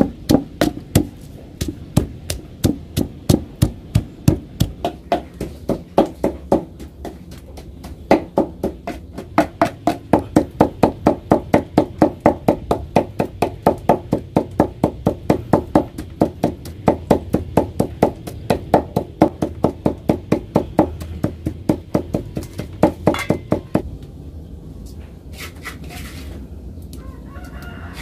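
Stone pestle pounding a spice paste in a stone mortar: fast, even strikes about three to four a second, with a short pause partway through, stopping near the end.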